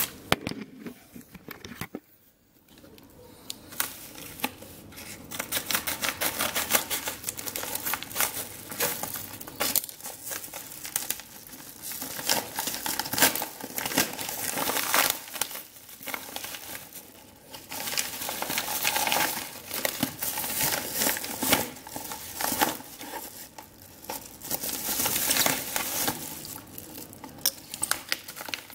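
A padded mailer envelope and the wrapping inside it being torn open and crumpled by hand: a long run of crinkling and tearing, with brief pauses.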